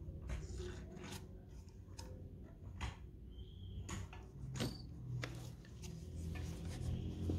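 Faint clicks and rubbing from hands working a plastic syringe on a tubeless bike tyre's valve stem and pressing the tyre, as sealant is pushed in through the valve. A brief squeak comes about halfway through.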